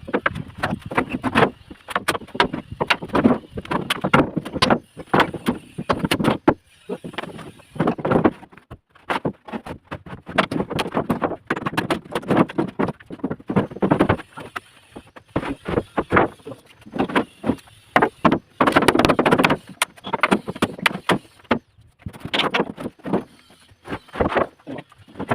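Formwork being dismantled from under a cast concrete slab: an irregular run of knocks and clatter as boards and props are struck loose and dropped, with denser bursts of clattering now and then.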